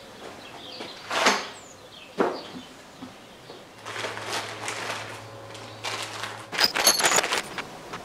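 A towel is shaken out and laid on a bench, then small plastic bags rustle and stainless steel bolts and washers clink as they are tipped out onto the towel, a quick cluster of metallic clicks with a light ring about seven seconds in.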